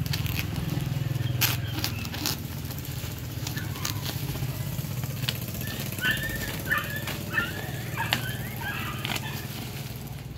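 Scissors snipping through bubble wrap and packing tape on a parcel, with the plastic wrap rustling and crinkling as it is cut and pulled back; a few sharp snips come in the first few seconds.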